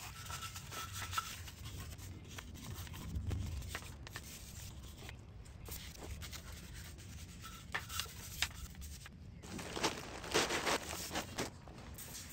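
Bristle brush scrubbing a foam-covered aluminum engine block from a Porsche Boxster 986, in uneven bursts of strokes with short pauses between them.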